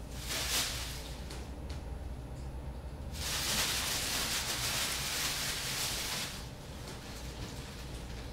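Paper rustling: a brief rustle about half a second in, then a louder stretch of rustling lasting about three seconds from around the three-second mark, over a steady low hum.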